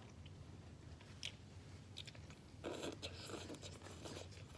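Quiet eating noises at a table over plates of noodles: a few faint clicks, then about a second and a half of rustling noise past the middle.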